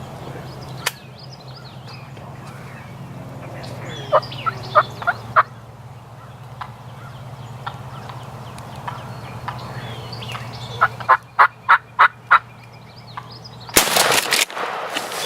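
Wild turkey gobbler gobbling twice, each gobble a quick rattling run of notes. Near the end there is a loud burst of broad noise.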